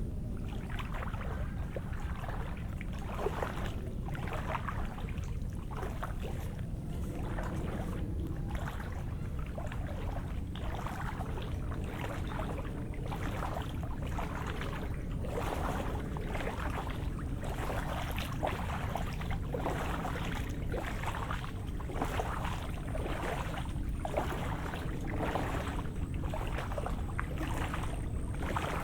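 Footsteps on wet, rain-soaked ground at a steady walking pace, a bit more than one step a second, over a steady low rumble.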